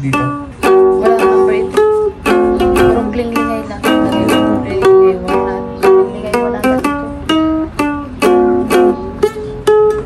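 Ukulele being strummed in a steady rhythm, several strums a second, with the chords changing every second or so.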